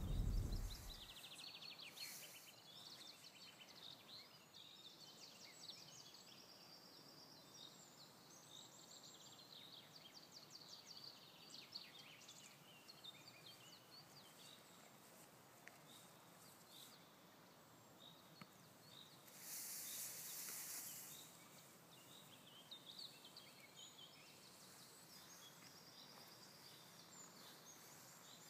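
Faint birdsong, with several small birds chirping and trilling. A low rumble dies away in the first second, and a short burst of hissing noise comes about twenty seconds in.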